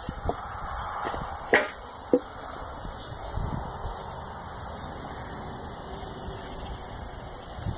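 Steady outdoor noise with two sharp knocks, about a second and a half and about two seconds in.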